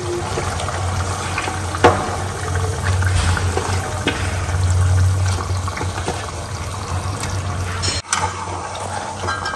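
Marinated chicken frying in a pan of spiced masala gravy: a steady sizzle, with a couple of sharp knocks of the spoon against the pan and a low hum underneath.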